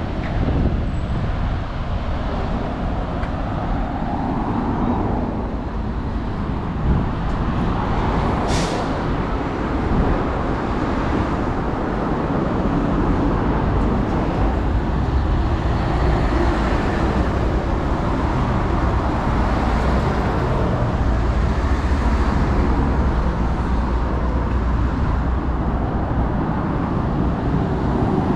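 Road traffic running past, a steady mix of cars and heavier vehicles, with a short sharp hiss about eight and a half seconds in.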